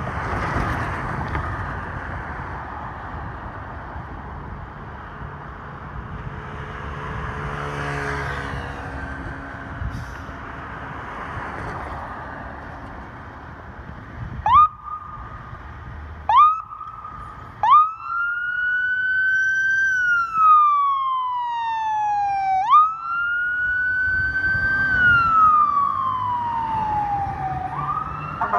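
Fire engine's electronic siren: about halfway in, three short rising whoops, then a wail that climbs and falls twice, each cycle about five seconds long. Before it, a steady rumble of engine and street noise.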